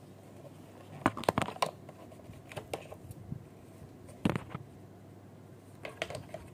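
Light clicks and knocks from hands handling a toy bubble gun and its packaging. A quick cluster about a second in, a few scattered taps, another loud cluster just after four seconds and a few more near the end.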